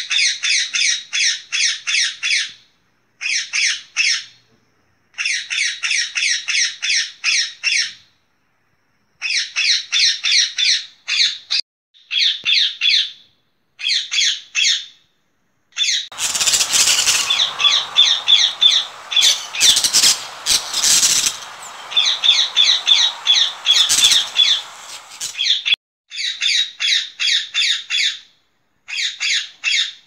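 A parakeet calling in bouts of rapid, shrill, evenly repeated notes, each bout about two seconds long with short gaps between. From about halfway through, for some ten seconds, a harsh noisy rasp with a few sharp knocks sounds beneath the calls.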